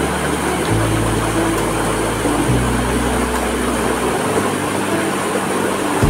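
Fast, swollen stream rushing and splashing down a rocky cascade in a steady, loud rush. Low held notes underneath step to a new pitch about every two seconds.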